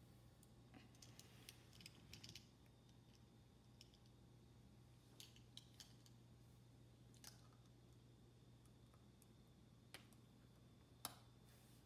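Near silence with faint scattered clicks of plastic Lego bricks being handled and pressed together: a cluster in the first couple of seconds, a few more in the middle and a sharper pair near the end, over a low steady hum.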